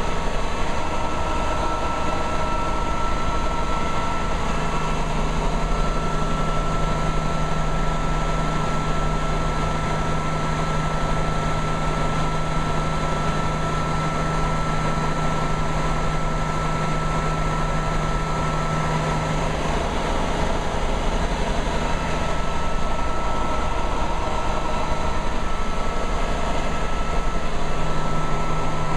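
Bell 47G4A helicopter's Lycoming six-cylinder piston engine and main rotor running steadily at operating rpm, heard from inside the cockpit as a constant drone.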